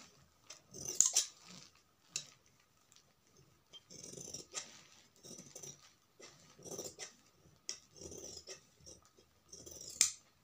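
Long steel tailoring scissors cutting through thin cloth in a series of separate snips, with the cloth rustling between them; sharp clicks of the blades about a second in and near the end.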